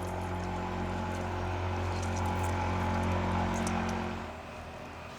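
A steady engine hum with a low pitched drone that swells slightly and then drops away about four seconds in, with a few faint clicks over it.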